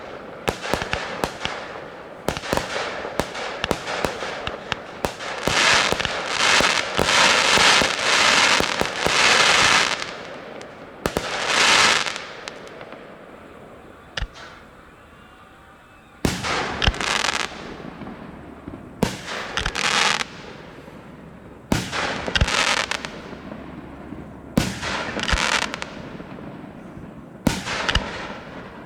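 Aerial fireworks display: shells bursting with sharp bangs, with long stretches of dense hissing noise from the effects in the first half. After a short lull, bangs come again in spaced groups.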